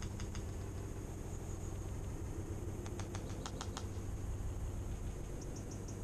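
Quick, dry clicks of a European goldfinch pecking and cracking seed at a plastic tube feeder close to the microphone: a couple near the start, a run of about eight in the middle, and a few fainter ones near the end, over a steady low hum.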